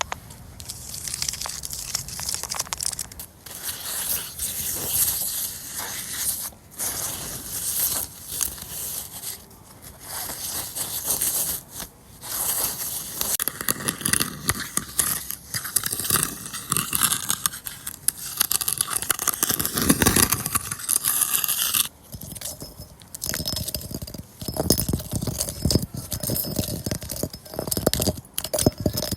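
Tree bark being scraped and rubbed close to the microphone: dense crackling and scratching made of many small clicks, with the texture changing about halfway through and again near the three-quarter mark.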